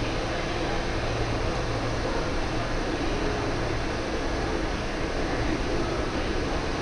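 Steady room noise of a large indoor pool hall: a constant hum and hiss, as of ventilation fans.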